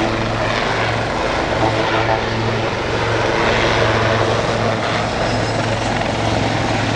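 Two Royal Navy Lynx helicopters flying past in formation: the steady low beat of their main rotors over engine noise.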